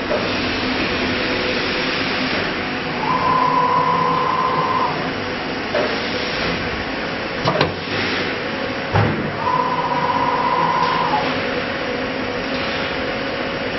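Acctek AKM1325C CNC router working through an automatic tool change: a steady machine hum with a whine that comes and goes twice for a second or two, and a few sharp clicks and knocks between them.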